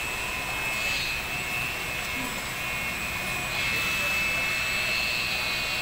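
A steady machine drone: an even hiss with a thin, constant high whine running through it, a little louder from about three and a half seconds in.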